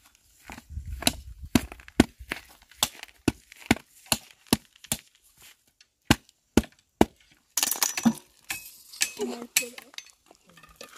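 Machete hacking the fibrous husk off a coconut on a rock: a steady run of sharp chops, about two a second, with a short pause near the middle.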